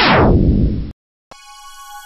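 An electronic sound effect sweeping steeply down in pitch, ending abruptly just under a second in. After a brief gap, intro music begins with a sustained synthesizer chord.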